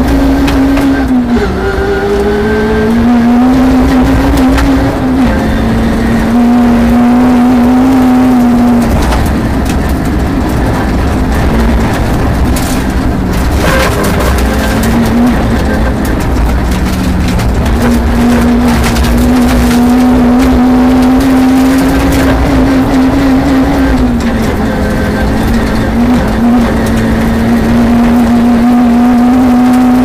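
Peugeot 306 RWD rally car driven hard on a gravel stage, heard from inside the cabin: the engine is held at high revs for long stretches, with short dips where the driver changes gear or lifts. A run of sharp clatters comes around the middle, typical of stones striking the underside.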